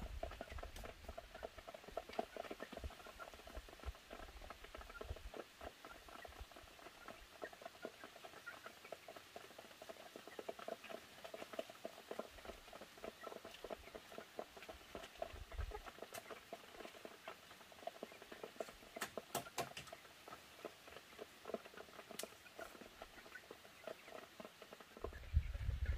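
Faint rustling and light crackling of dry palm-leaf thatch and bamboo poles as a person shifts about on a hut roof, with a few sharper clicks about three-quarters of the way through.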